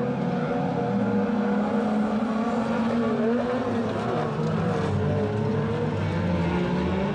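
Engines of several production-based autocross race cars running hard at once, their pitches rising and falling as they rev.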